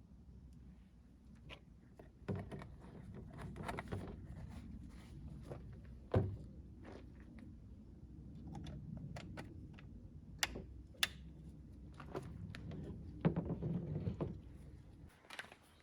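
Irregular handling knocks and clicks of hard objects being moved and set down, with a sharper knock about six seconds in and a cluster of knocks near the end, over a low steady hum.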